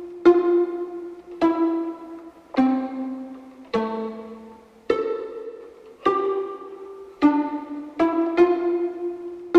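Background music: a slow line of plucked string notes, one about every second, each struck sharply and fading away, with two notes in quick succession near the end.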